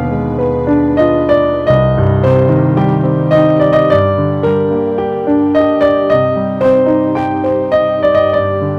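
Background piano music: a gentle melody of single notes over held low chords.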